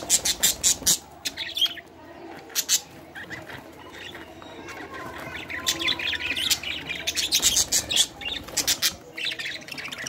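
A flock of budgerigars chattering with rapid, harsh squawks and chirps. The calls come in busy bursts: in the first second, briefly near three seconds in, and thickest from about five and a half to eight seconds.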